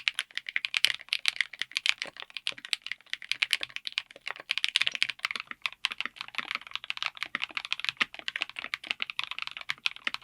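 Fast, continuous typing on a mechanical keyboard fitted with linear switches: a dense stream of sharp key clacks, with a few brief pauses.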